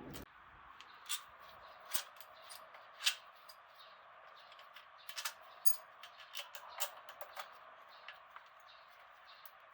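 Irregular light clicks and taps of hand tools and parts being handled during a Yamaha LC motorcycle engine teardown, over a faint steady hiss. The sharpest taps come about one, two and three seconds in, with a busier run of smaller clicks in the middle.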